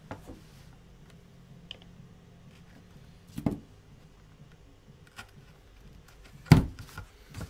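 Workbench handling sounds: a plastic guide is set down on the foam-board backing of a picture frame with a knock about three and a half seconds in, then a louder, sharper knock about six and a half seconds in, with a few faint taps between over a low steady hum.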